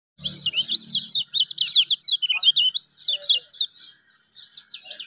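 Kecial kuning songbird singing a fast, continuous string of high chirps and trills, with a brief pause about four seconds in. A faint low hum runs under the first second.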